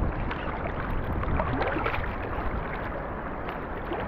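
Sea water sloshing and splashing around a half-submerged action camera as a swimmer kicks with fins through the water: a steady wash of water noise with a low rumble.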